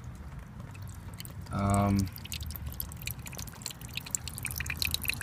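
Water dripping from a leak at the hot tub's hose connections, a scattered run of small sharp drops that grows busier in the second half. About a second and a half in, a brief low hum, like a hummed "mm", is the loudest sound.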